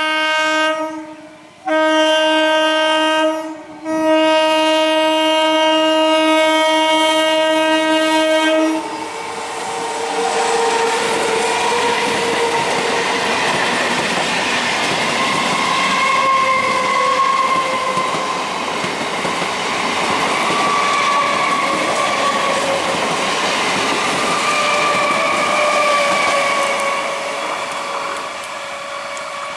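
An electric multiple unit (EMU) local train sounds its horn three times: a short blast that ends about a second and a half in, a second short blast, then a long blast of about five seconds. After that, EMU coaches pass close by with a steady rumble and wheels clattering over the rail joints.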